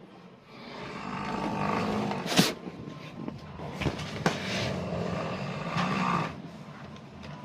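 A person snoring very loudly, each breath a rasping, rattling swell that rises and falls about every two seconds, with a few sharp clicks in the middle.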